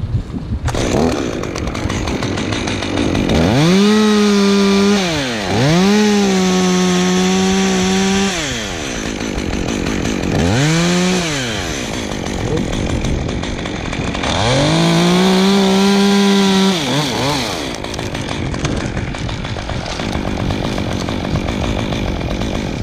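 Stihl top-handle two-stroke chainsaw running, revved four times to a high steady whine that is held for one to three seconds each time before dropping back to idle.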